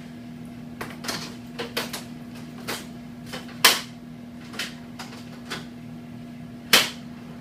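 Irregular clicks and knocks of an image receptor being loaded lengthwise into the tray of a wall-mounted chest bucky and clamped in place. Two louder knocks come about three and a half and nearly seven seconds in, over a steady low hum.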